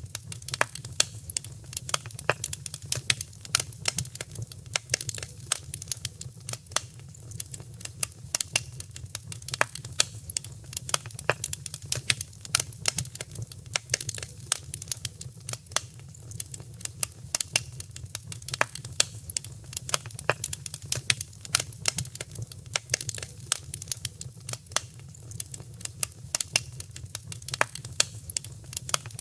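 Wood fire crackling in a fireplace: dense, irregular sharp pops and snaps over a steady low rumble.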